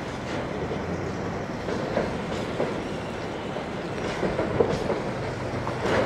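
Freight train of container-laden flatcars rolling across a railway overpass: a steady rumble of wheels on rails with scattered light clicks.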